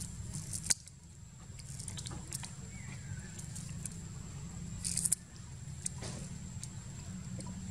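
Macaque tearing and biting into a sugar cane stalk: short crackling snaps of the splitting cane, sharpest about a second in and again about five seconds in, over a steady low rumble.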